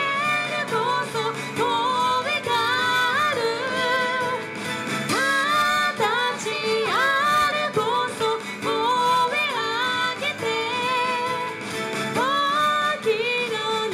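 Women singing an Okinawan folk song, the melody sliding up into its notes, over plucked-string accompaniment.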